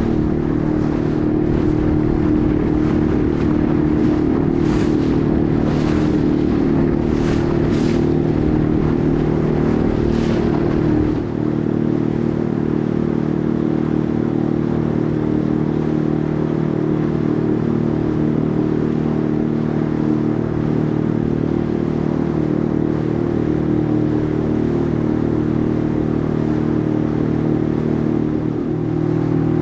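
A boat's engine running steadily, with water slapping and splashing against the hull over the first ten seconds or so before the water calms. Near the end the engine note dips briefly.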